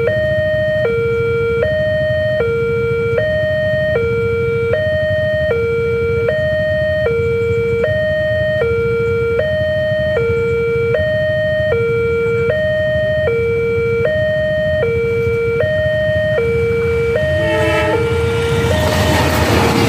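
Railway level crossing warning alarm sounding a steady two-tone alternation, a low tone and a higher tone each held a little under a second, signalling the barrier is down for an oncoming train. Near the end the alarm stutters and a rising rush of noise from the approaching train comes in over it.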